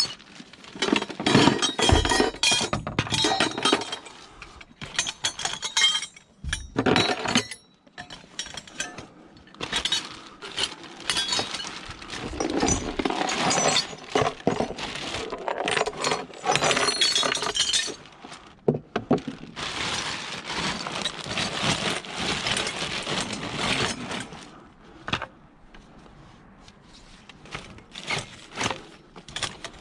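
Hard metal and glassy items clattering and clinking as scrap is rummaged through, in a long run of irregular knocks and clinks that thins out near the end.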